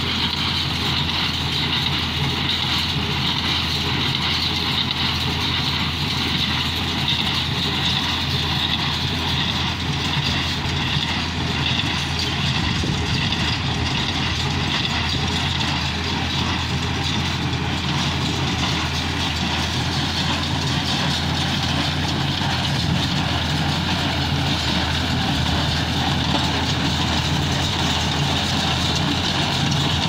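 Farm tractor's diesel engine running steadily while it pulls a small square hay baler through windrowed hay, the baler's machinery working along with it.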